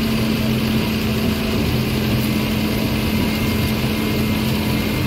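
John Deere 7530 tractor's six-cylinder diesel engine running at steady revs under load while pulling a plough through the field.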